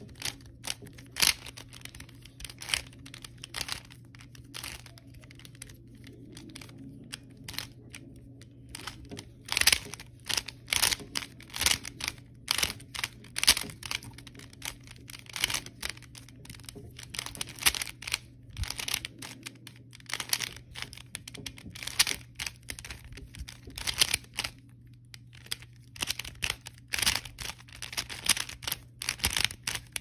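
Plastic Rubik's cube being turned fast by hand: an irregular stream of clicks and clacks as the layers snap round, a few a second, with a couple of brief lulls between bursts of turns.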